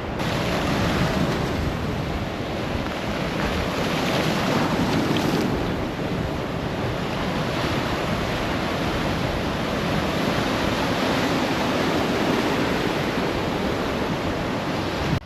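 Steady wash of sea waves on the shore mixed with wind buffeting the microphone, swelling and easing slowly.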